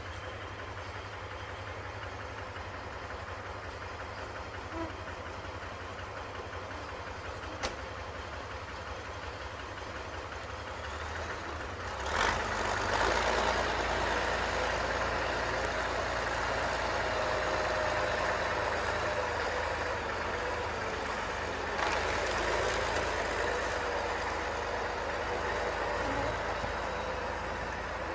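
Off-road truck engine running steadily, then working harder and louder about twelve seconds in, with a second surge near the end.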